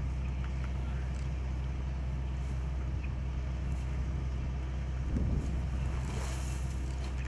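Outdoor background noise: a steady low hum with wind buffeting the microphone, and a louder gust about five seconds in.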